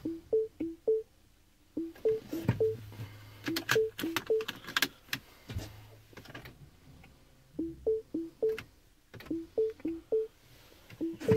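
Mini Cooper S Clubman's dashboard warning chime: a low-high two-tone beep, three pairs to a burst, the bursts repeating about every two seconds with a pause in the middle. Clicks and a low hum come in between as the ignition is switched on, just before the engine starts.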